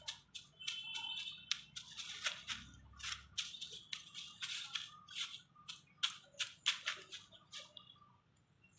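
Dry fallen leaves crackling and rustling in quick, irregular crackles as a stick is dragged and poked through the leaf litter and a puppy scrabbles and pounces in it. The crackles thin out near the end.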